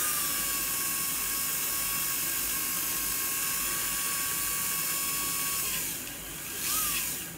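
Tyco 440-X2 HO slot car's small electric motor whining steadily with the chassis held on the track, on its first test run after being freshly oiled. About six seconds in it winds down, then gives one short rising-and-falling whine before it stops.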